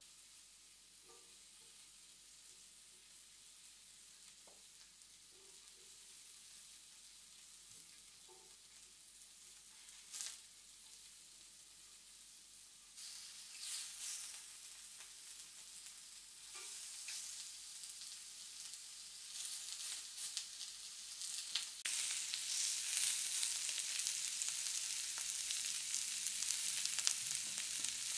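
Meat sizzling on an indoor Korean barbecue grill. The sizzle grows louder in steps, about halfway through and again near the end, with a few light taps, one sharper tap about ten seconds in.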